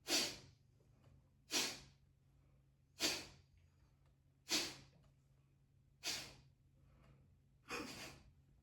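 Six sharp, forceful exhales through the nose, one about every second and a half, in qigong 'fire breathing', the air pumped out of the nose like a bellows. The last exhale is a little longer.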